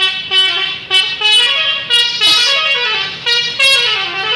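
Indonesian 'telolet' musical bus horn playing a quick tune of short notes that step up and down in pitch.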